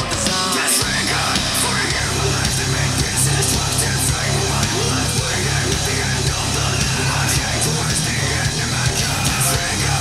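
Loud hard-rock music with distorted electric guitar and heavy bass, played back through a large portable Bluetooth speaker. The deep bass cuts out briefly about half a second in.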